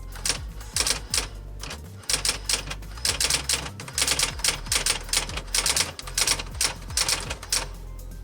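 Brother SX4000 electric typewriter typing: fast runs of sharp key strikes, several a second, with short pauses between the runs.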